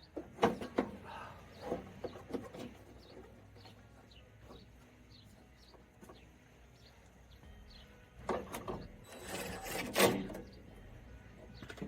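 Clicks and knocks of hand work inside a Suzuki Samurai's door, then a couple of seconds of rubbing, clattering noise as the door glass is wound in its regulator, loudest about ten seconds in. Faint bird chirps in the quiet stretch between.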